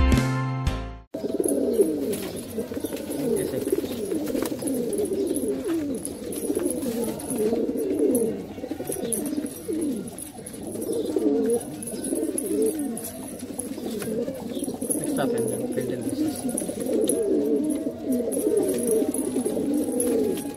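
Domestic pigeons cooing: overlapping, wavering low coos that go on without a break after a strum of guitar music cuts off about a second in. It is the courtship cooing of a cock pigeon displaying to a hen with his tail fanned.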